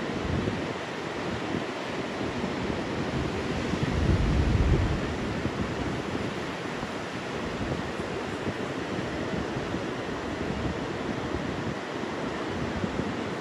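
Ocean surf breaking and washing ashore in a steady rush, with wind buffeting the microphone in low rumbling gusts, the strongest about four seconds in.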